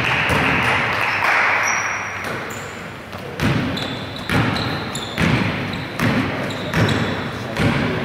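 A basketball dribbled on a wooden gym floor in slow, regular bounces, about one a second, starting about three seconds in and echoing in the hall. Before the dribbling, a noisy rush fades away.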